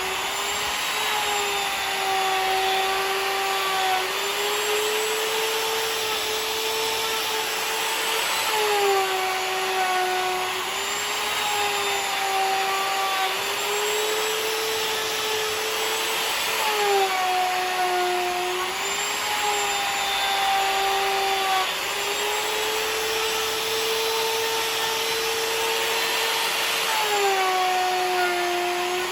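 An electric router running continuously as it mills the surface of a walnut tabletop flat. Its motor hum dips slightly in pitch and recovers every several seconds as the bit bites into the wood, over a steady hiss of cutting.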